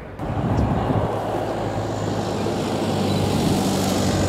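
Lockheed P-3 Orion's four Allison T56 turboprop engines passing low overhead: a steady, loud propeller hum with a rushing noise above it.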